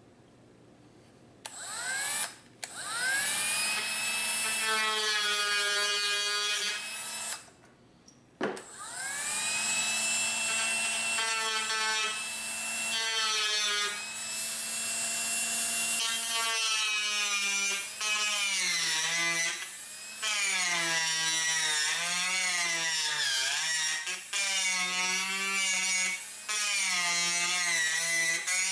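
Dremel rotary tool spinning up and grinding into a wooden rifle stock's nose to shape it. Its high whine climbs in pitch as it starts about a second in, stops briefly and restarts about eight seconds in, and in the second half rises and falls repeatedly as the bit bites into the wood.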